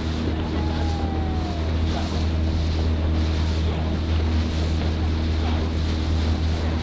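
Motor launch's engine running steadily with a low hum, over the rush of water and wind buffeting the microphone.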